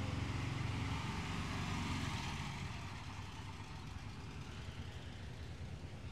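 An engine running with a low, steady hum that fades away after about two seconds.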